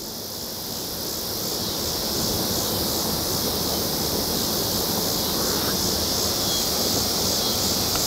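Steady rush of water from a creek waterfall, growing louder over the first couple of seconds and then holding, with crickets trilling high above it.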